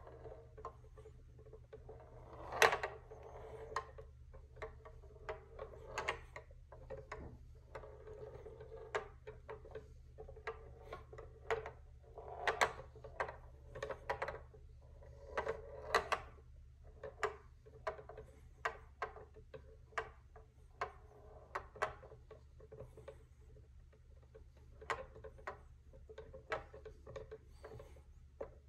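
Steel ball of a wooden BRIO tilting labyrinth rolling over the board and knocking against the maze walls: irregular sharp clicks and taps, one to three a second, with a soft rolling sound between them.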